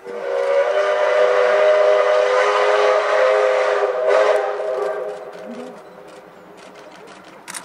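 Steam locomotive whistle sounding one long, steady blast of several tones together for about five seconds, then fading away.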